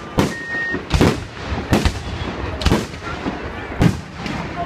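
Fireworks shells bursting overhead: a string of loud booms at irregular intervals, about five strong ones, each trailing off in a short rumble.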